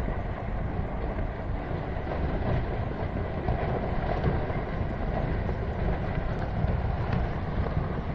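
Heavy, continuous rumbling of a landslide: earth and rock sliding down a mountainside, with no let-up.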